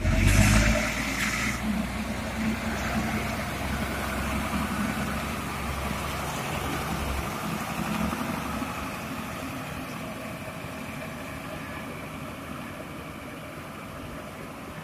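Mitsubishi Fuso 6x4 dump truck's diesel engine running steadily, getting gradually quieter over the second half, with a loud hiss in the first second or so.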